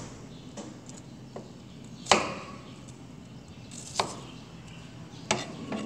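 Kitchen knife chopping on a plastic cutting board: slow, separate chops, three loud knocks about two seconds apart after a couple of lighter taps.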